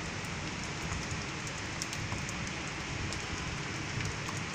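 Steady rain falling, with scattered sharp ticks of individual drops.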